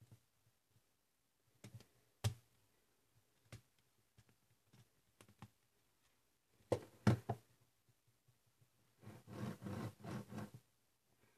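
Plastic LEGO Technic parts of a crane trolley clicking and knocking as it is handled, with the loudest cluster of knocks about seven seconds in. Near the end comes a dense rattle of about a second and a half as the wheeled trolley is set on a wooden table and moved across it.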